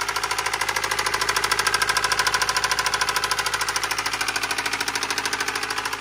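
Subaru Forester's flat-four boxer engine running with a loud, rapid metal-to-metal rod knock of about ten knocks a second, somewhat louder for a couple of seconds in the middle. This is an engine knock: the connecting-rod bearings are worn from oil starvation.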